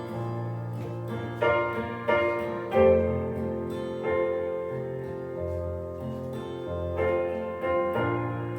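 Slow piano accompaniment with no vocals: chords struck every second or so and left to ring.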